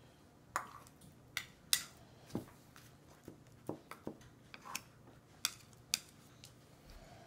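Metal feeding spoon clinking and scraping against a bowl as mashed potato and egg yolk are scooped up: about a dozen sharp, unevenly spaced clinks, some with a short ring.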